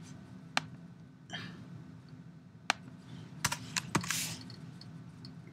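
Scattered sharp clicks of a computer keyboard and mouse: single clicks about half a second in and near three seconds in, then a quick run of four or five around three and a half to four seconds in.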